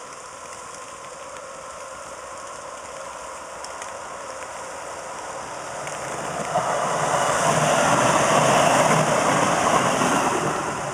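Electric light rail train approaching and passing close by: its rolling wheels and running gear grow louder from about six seconds in, peak near the end, then begin to fade. Steady rain hiss underneath throughout.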